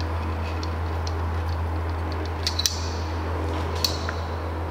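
Light metallic clicks and clinks from the metal fitting and gauges of an oxygen transfill hose being handled, a close pair about halfway through and one more later, over a steady low hum.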